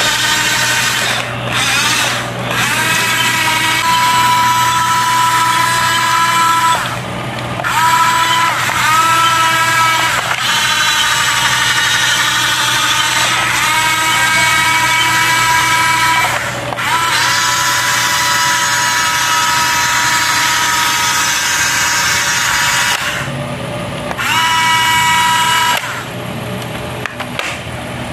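Electric drive motors and gearboxes of a radio-controlled tracked crawler whining as it drives. It stops and starts several times, the whine rising in pitch each time it spins back up.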